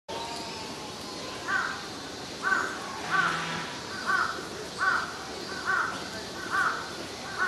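An animal calling: eight short calls in a row, evenly spaced just under a second apart, beginning about a second and a half in, over steady background noise.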